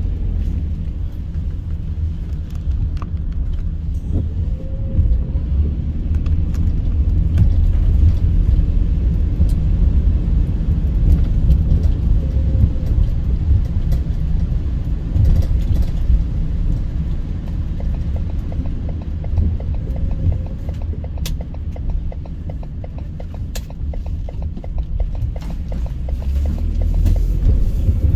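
A car being driven: a steady low rumble of engine and tyres on the road, with a few faint ticks scattered through it.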